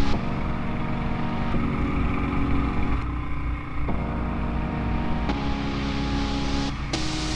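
ATV engine running steadily under way on a dirt trail, with low rumble. Its tone shifts abruptly a few times.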